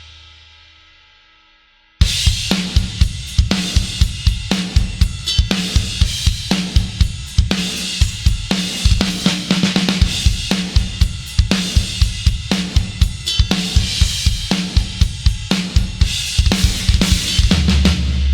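Sampled metal drum kit from the EZdrummer 3 Drums of Destruction library, ringing out and then, about two seconds in, starting a fast groove. The groove has rapid kick drum strokes, a steady backbeat of snare hits and crashing cymbals.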